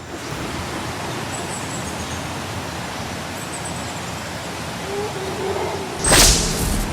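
A steady rushing noise, broken about six seconds in by a sudden loud burst.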